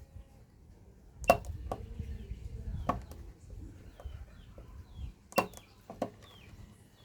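Battery spot welder firing on nickel strip: about five sharp snaps at irregular intervals, the loudest about a second in and another near the middle, with low handling rumble between the first few.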